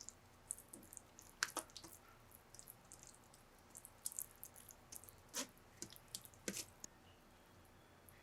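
Scattered light clicks and taps of small objects being handled, with a few sharper knocks about a second and a half in, near five and a half seconds and six and a half seconds.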